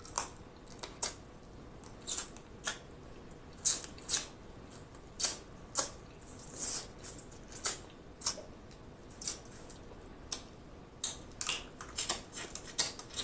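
Close-miked eating sounds from a crawfish boil: lips smacking and sucking on spicy boiled crawfish and on seasoned fingers. Short crisp smacks and slurps at irregular intervals, coming faster near the end.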